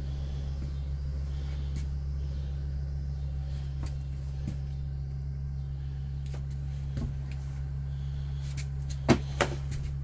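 Steady low mechanical hum, with a few light clicks and two sharp knocks close together near the end.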